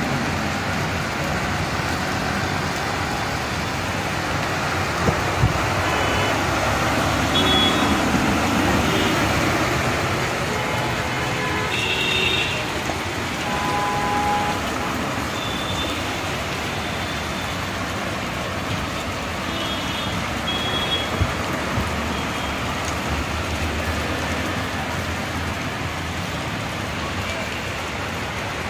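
Road traffic driving through a flooded street in heavy monsoon rain: vehicle engines running and tyres sloshing through standing water under a steady wash of rain.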